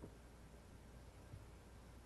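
Near silence: room tone with a steady low hum and two faint soft knocks, one at the start and one about a second and a half in.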